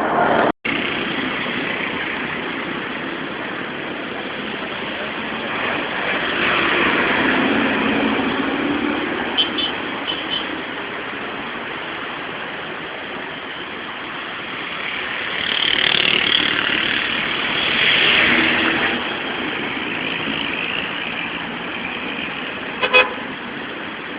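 City street traffic: a steady wash of cars passing, swelling twice as vehicles go by, with a few short horn toots.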